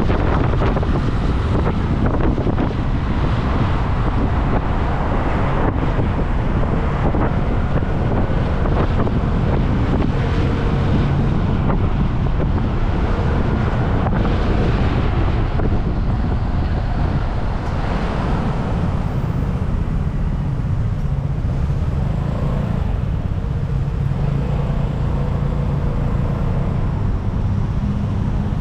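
Wind rushing over the microphone of a moving motor scooter, mixed with road and car-traffic noise. The wind eases in the last third as the scooter slows among cars.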